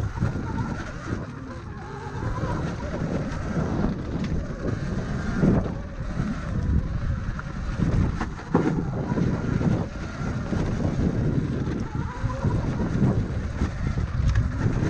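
Sur-Ron electric dirt bike being ridden along a dirt trail: wind buffeting the microphone over a low rumble from the tyres, with a few sharp knocks from bumps.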